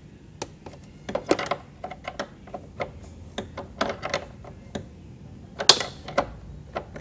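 Irregular light metal clicks from a short 8 mm wrench on the headlight-aim adjuster bolt of a Honda CBR250RR as it is turned a little at a time to the left, lowering the headlight beam. A sharper click comes near the end.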